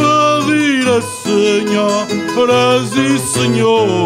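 A man singing a drawn-out, melismatic line of an Azorean cantoria, with his voice gliding up and down in pitch, over a viola da terra and an acoustic guitar playing plucked accompaniment.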